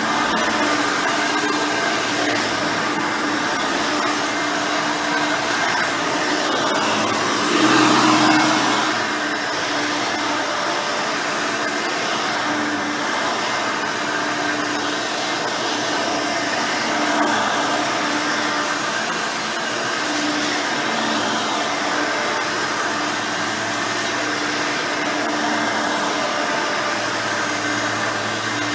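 Hoover Elite 5.0 upright vacuum running steadily on its rebuilt original 5-amp motor, with one brief louder swell about eight seconds in.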